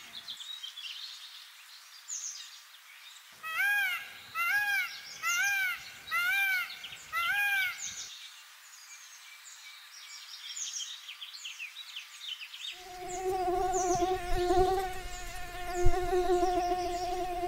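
Woodland birds calling: one bird repeats a loud arched whistled note five times, about one every 0.7 seconds, over many small high chirps. About thirteen seconds in a steady buzzing hum of two held tones starts, with a single sharp knock near the end.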